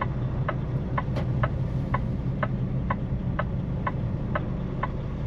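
Turn signal ticking evenly, about twice a second, in a semi truck's cab over the steady low drone of the engine and road.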